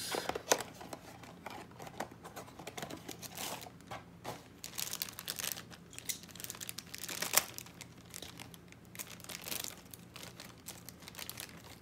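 Plastic-foil blind-bag wrapper of a Funko mystery mini being crinkled and torn open by hand, in irregular crackles with the sharpest one about seven seconds in.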